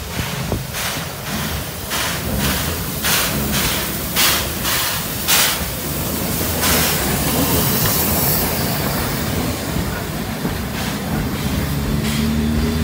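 JNR C56 2-6-0 steam locomotive passing close by, its exhaust puffing in a steady beat as it approaches. About six or seven seconds in there is a loud hiss of steam as the engine goes by, then its wooden-era passenger coaches rumble past on the rails. Music comes in near the end.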